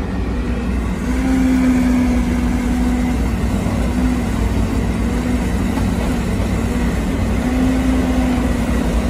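Heavy diesel logging equipment running steadily, heard from inside a machine's cab: a constant low engine rumble with a hum that swells and eases a couple of times.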